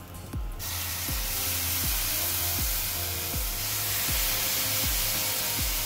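Salna gravy hits the hot oil and fried cabbage pakoda pieces in a wok and sizzles steadily as a ladle stirs it. The sizzle starts suddenly about half a second in. Background music with a regular beat runs underneath.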